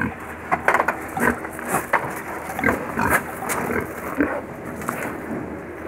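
Domestic pig grunting now and then, mixed with irregular knocks and scuffs.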